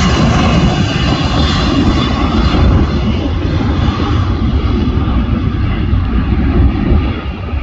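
Jet engines of a Transavia Boeing 737 running loud as the airliner rolls along the runway. The sound is a dense roar with a whining edge that dulls and fades as the plane moves away.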